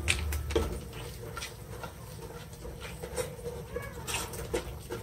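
Metal spoon scraping and knocking against a cooking pot while a thick onion-tomato masala is stirred, in a series of short, irregular scrapes and clinks.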